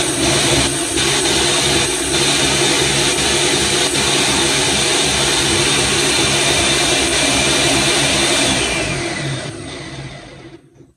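Ninja countertop blender's motor running steadily at speed, blending chopped ginger in liquid, with its cracked pitcher not locked onto the base and shaking, so it has to be held. About eight and a half seconds in, the motor is switched off and winds down to a stop.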